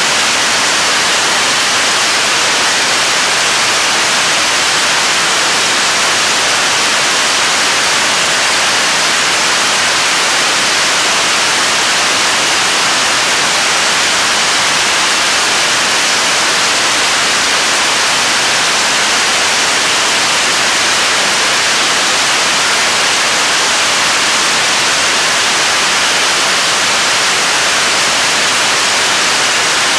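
7-tonne-class kerosene–liquid-oxygen rocket engine firing at steady thrust in a ground hot-fire test: a loud, unchanging rushing hiss.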